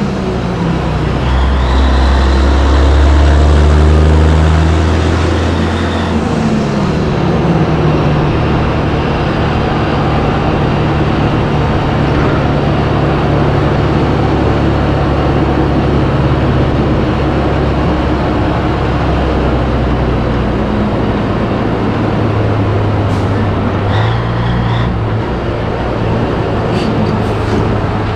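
Cabover Peterbilt 362 semi's diesel engine pulling a loaded trailer, with the engine note dropping at a gear change about six seconds in and again shifting near the end. Tyre and wind noise run under it.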